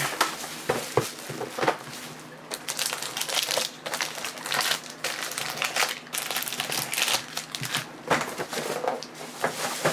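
Plastic wrapping on basketball trading card packs crinkling and tearing as they are opened by hand, in irregular rustles and crackles.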